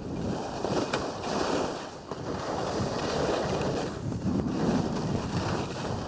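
Skis sliding and turning through snow in the trees, a rushing hiss that rises and falls with the turns, with wind buffeting the microphone.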